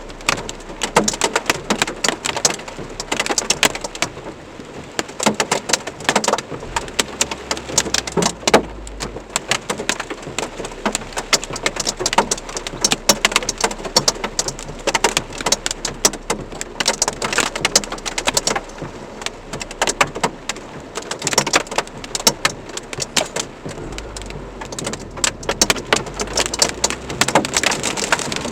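Heavy rain mixed with hail, the drops and hailstones hitting a hard surface in a dense, irregular clatter of sharp ticks. A low rumble comes in twice, about a third of the way through and near the end.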